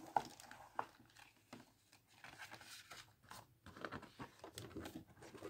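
Faint paper rustling and small scattered clicks as the pages of a spiral-bound desk calendar are handled and flipped over.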